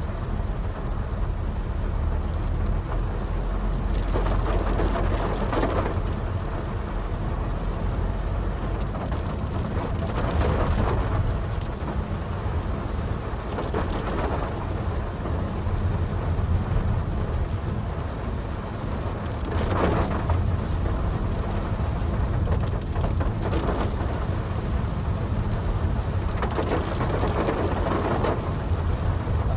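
Rain falling on a moving Honda Brio, heard inside the cabin over a steady low rumble of engine and tyres on a wet road, with the hiss swelling and easing every few seconds.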